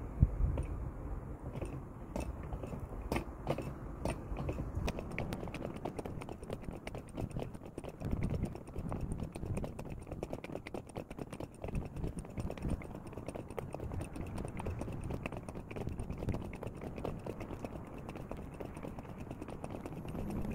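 A person chewing food close to the microphone: many small, irregular crunching clicks over a low background hum.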